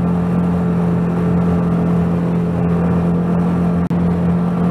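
5 hp Mercury outboard motor running steadily at full throttle, driving a jon boat at its top speed. The sound cuts out for an instant near the end.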